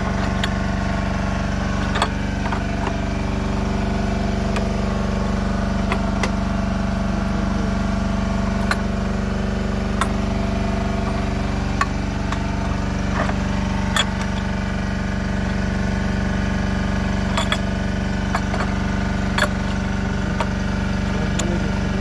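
An engine running steadily at idle, with scattered sharp clicks and knocks from work going on around it.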